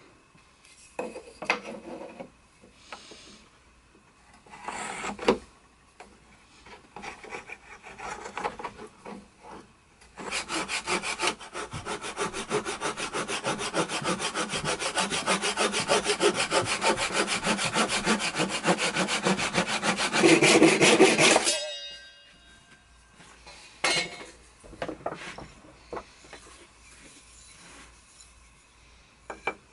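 Japanese-style hand saw cutting a strip of wood with quick, even strokes, for about eleven seconds in the middle and loudest just before it stops. Before and after it come scattered knocks and rubbing of wood and tools being handled.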